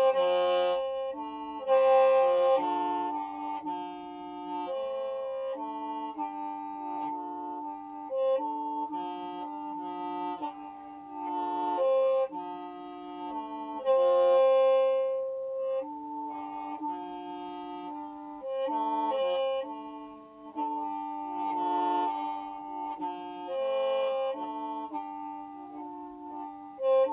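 Hmong qeej, a bamboo free-reed mouth organ, being played: several pipes sound at once, with a steady lower note held beneath a melody that changes every second or so. The melody is broken by a few louder swells.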